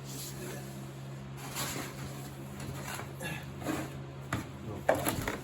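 Scraping, rustling and light metal clinks of hand work and tools on a tractor's front axle, with a sharper knock near the end, over a steady low hum.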